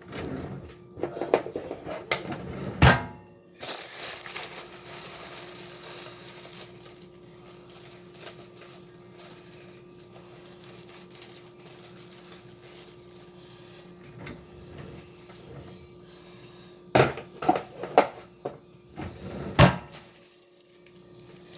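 Frozen waffle packaging being opened and handled by hand: scattered knocks, clicks and crinkles in a burst at the start and again near the end, with a faint steady hum between.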